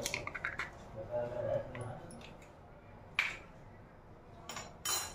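Hen's eggs cracked by hand over a plastic mixing bowl: a quick run of shell-breaking clicks at the start, then a few separate sharp clicks of shell and bowl handling, one about three seconds in and two near the end.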